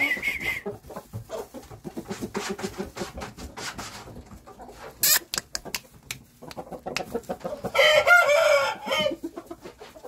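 Game-fowl chickens clucking in short, repeated calls, then a rooster crows once near the end, a single loud call of about a second. There is a sharp click about halfway through.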